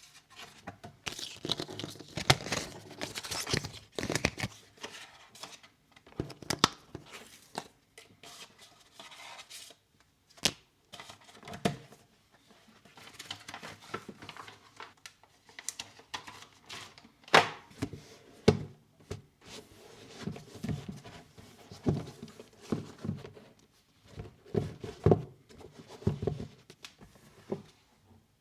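Packaging being handled: irregular crinkling, rustling and tearing, broken by short knocks and taps.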